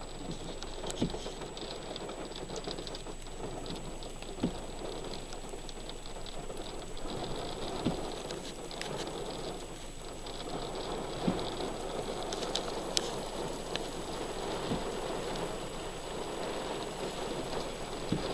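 Heavy rain pouring down onto wet, flooded asphalt, a steady dense hiss of falling water, broken by a few sharp single taps.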